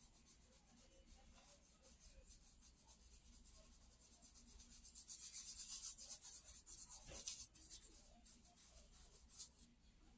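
Charcoal stroked rapidly over sketchbook paper, a quick run of repeated back-and-forth strokes that grows loudest in the middle, with one sharper stroke near the end.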